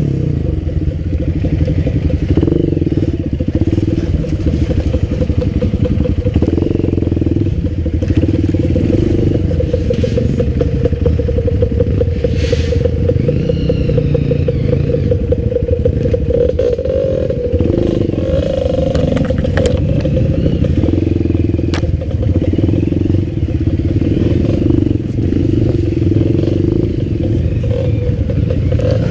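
Off-road motorcycle engine running steadily under varying throttle while being ridden over rough trail. Scattered clatter and knocks run through it.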